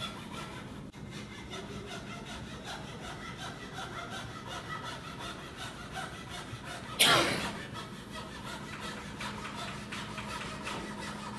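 Chevalet de marqueterie (a foot-braced marquetry fret saw) cutting through a packet of wood veneers in steady, even strokes, about three a second. A brief loud burst of noise about seven seconds in.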